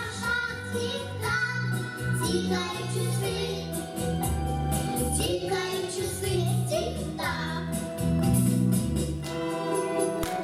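Children's vocal ensemble singing a New Year song into microphones over backing music with a steady stepping bass line.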